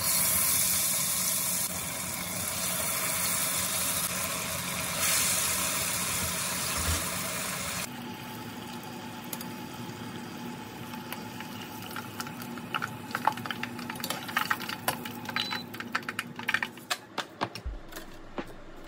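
Tofu deep-frying in oil: a loud, steady sizzle for the first several seconds. Then, after a sudden change, a quieter sizzle with many small pops and crackles that come thicker toward the end.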